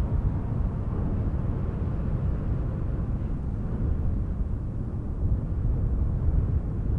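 Wind blowing as a steady, deep rush of noise with small gusts, swelling slightly about six seconds in.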